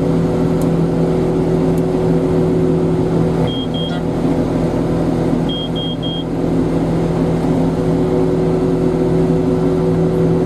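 Heavy diesel engine of a silage-harvesting machine running steadily at constant speed. Short high electronic beeps sound over it: two about three and a half seconds in, then three more about two seconds later.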